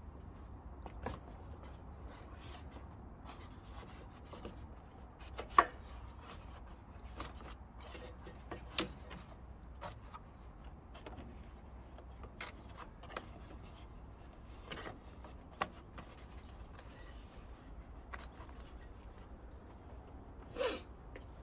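Polystyrene bumper impact absorber being handled and pushed into place on a van's front end: scattered clicks and knocks with some rubbing over a low steady hum. The loudest knocks come about five and a half seconds in and near the end.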